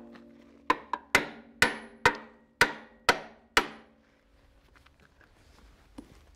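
A hand hammer striking a steel drift held against an excavator's steel wedge quick coupler: about eight sharp blows in some three seconds, each leaving a metallic ring.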